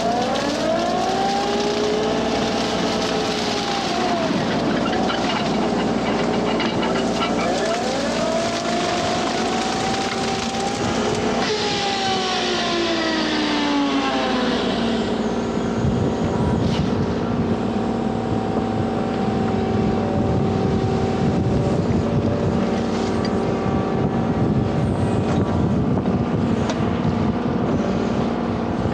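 Kubota U35-4 mini excavator's diesel engine running steadily under load while its Express Steel hydraulic brush cutter mows cattails and brush. A whine rises and falls in pitch several times in the first half, and the sound turns rougher and choppier in the second half as the cutter works through the reeds.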